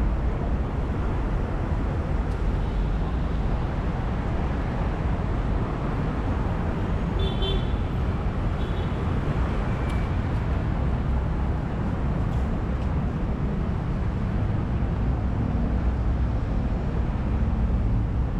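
Steady city traffic noise from a busy road, heavy in the low end, with two short high beeps about seven and nine seconds in.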